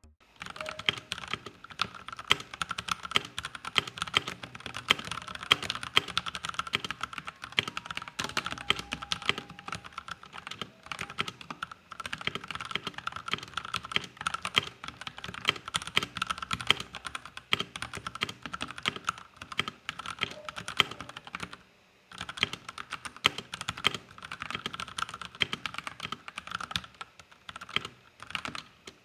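Keychron C1 mechanical keyboard with Gateron Brown (tactile) switches being typed on, a fast run of key presses with a short break about 22 seconds in.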